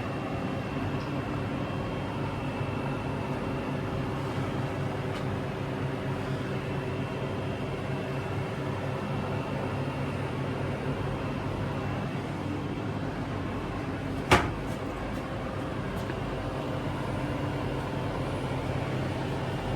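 Refrigeration equipment running: a steady mechanical hum of fridge compressors and condenser fans with a few fixed tones in it. About two-thirds of the way through, a single sharp knock stands out.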